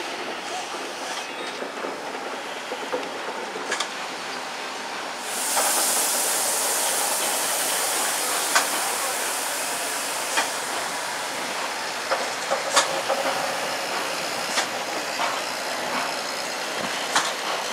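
DB class 01 steam locomotive 01 150 rolling slowly past with steam hissing steadily. The hiss turns suddenly louder about five seconds in, and scattered sharp clicks and knocks come from the moving locomotive.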